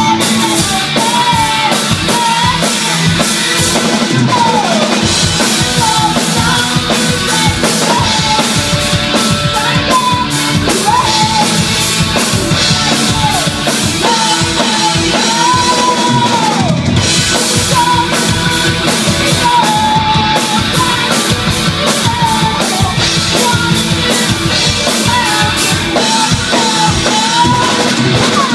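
Live rock band playing: electric guitars, bass guitar and drum kit, with a girl singing the melody over them.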